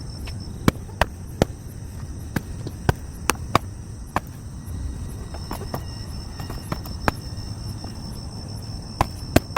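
Night insects, crickets by the sound, keeping up a steady high trill, broken by about a dozen sharp, irregular clicks and taps, the loudest a few near the start and a quick cluster near the end.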